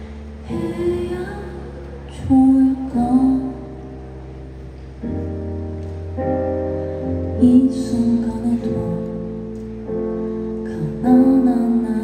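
A woman singing live in short phrases over long held chords from a stage keyboard.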